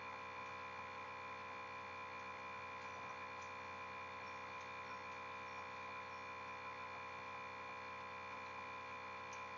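Steady electrical hum with a faint high whine, unchanging throughout; no other sound.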